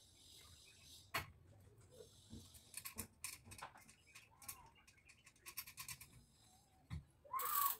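Scattered light clicks and rustles of lamp wires being handled and pushed through the metal centre body of a chandelier. A short, louder noise comes near the end.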